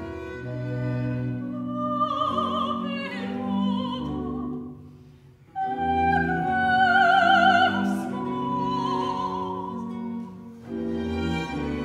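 An operatic voice singing with wide vibrato over a baroque string orchestra. The voice enters about two seconds in and breaks off briefly near the middle. It comes back louder on long held notes, then the strings carry on alone near the end.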